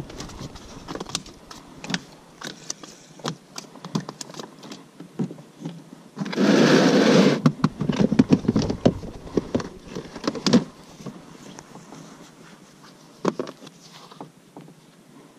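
Handling noises in a PVC inflatable boat: scattered knocks, taps and scrapes, with one loud scuffle lasting about a second and a half near the middle.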